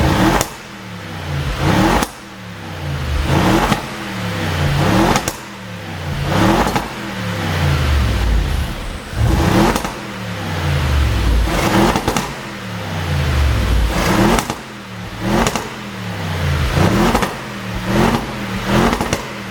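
Audi RS7's twin-turbo 4.0 TFSI V8 being blipped over and over, about a dozen times, each rev falling away with sharp exhaust pops and crackles from a pop-and-bang tune.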